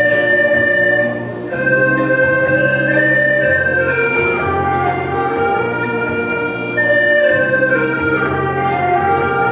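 An ensemble of hulusi gourd flutes, joined by a dizi bamboo flute, plays a sustained, reedy melody in unison. Underneath are steady low notes that change every couple of seconds and a light steady beat.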